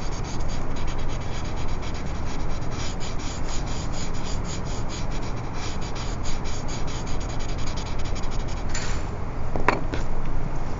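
A paper blending stump rubbed over graphite shading on drawing paper in quick, even, short strokes, smoothing the pencil shading out. The rubbing stops about nine seconds in, and a single short tap follows.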